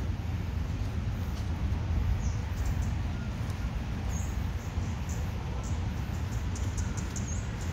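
Outdoor ambience: a steady low rumble with brief, high chirps of small birds scattered through it.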